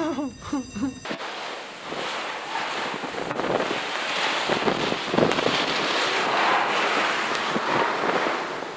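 Hurricane wind cuts in abruptly about a second in: a steady rushing that builds over the next few seconds, with gusts buffeting the microphone.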